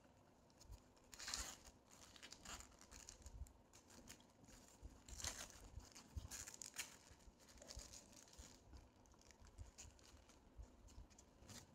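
Paper wrapper being crinkled and torn off a shawarma roll by hand, in short rustling bursts, the loudest a little over a second in and again around five to seven seconds in.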